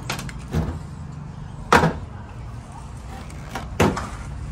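A handful of sharp metal knocks and clinks as gloved hands work at the opened Honda City CVT transmission case and the loose steel pieces of its broken drive belt, the loudest about two seconds in and near the end, over a steady low hum.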